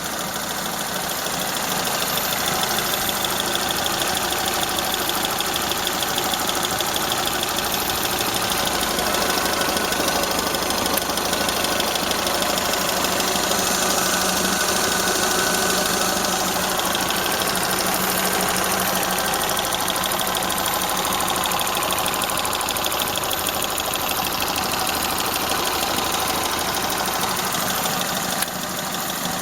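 Toyota Corolla Ceres's 4A-FE 1.6-litre twin-cam four-cylinder idling steadily with a fast, light tapping, which the owner cannot place between a valve tapping and the camshafts rattling. The exhaust flex pipe also leaks a little.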